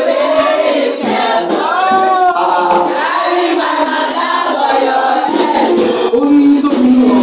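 A woman singing into a microphone over a PA system, with other voices singing along.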